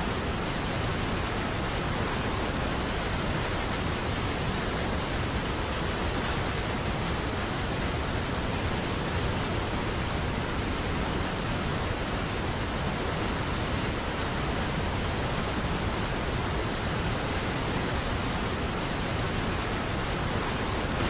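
Waterfall: water pouring down in a steady, even rush that does not change.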